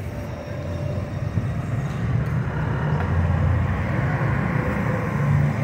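Street traffic: the engines of cars and motor scooters running, with a low engine hum that grows gradually louder as vehicles come closer.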